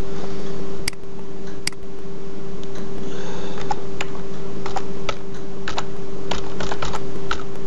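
Computer keyboard keys clicking as a password is typed: a couple of separate clicks in the first two seconds, then a quicker run of irregular keystrokes from about three seconds in. A steady hum runs underneath.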